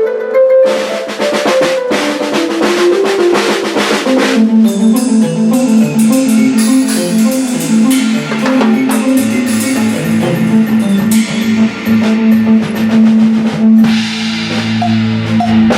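A large drum kit played in a dense jam, with rapid drum hits and cymbal wash. Underneath runs a pitched melodic part that steps from note to note, busiest in the second half.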